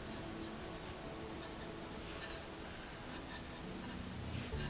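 Faint scrubbing and dabbing of a paintbrush laying wet acrylic wash onto a canvas board, in short light strokes.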